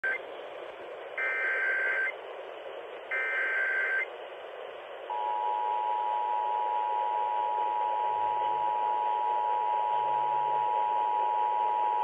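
Emergency Alert System test broadcast on AM radio, heard through a small portable emergency radio's speaker over steady reception hiss. It opens with the tail of one SAME header data burst, then two full one-second bursts of harsh digital chirping. About five seconds in, the steady two-tone EAS attention signal begins.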